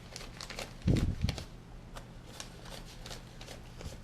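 Paper dollar bills being handled and counted, a dry crisp rustling with many small clicks, with one brief low thump about a second in.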